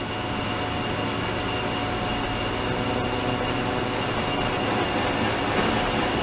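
Ultrasonic cleaning tank running: a steady hiss from the water, with a faint high whine held at one pitch.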